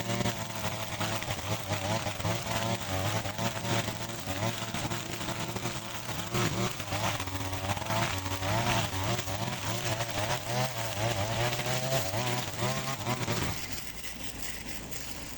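Grass cutter engine running with a high buzz, its pitch wavering up and down as it is worked through grass, easing off near the end.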